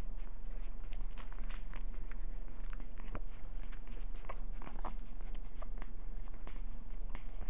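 Three-week-old Cairn terrier puppies suckling at their mother: scattered small wet clicks and smacks, irregular and close together, over a steady low hum.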